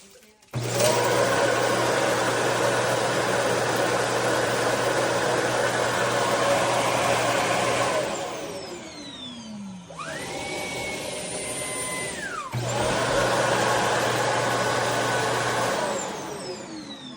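Shark cordless vacuum motor running with a steady hum, then winding down with a falling whine about eight seconds in. A high steady whine follows for a couple of seconds, then the motor runs again and winds down near the end.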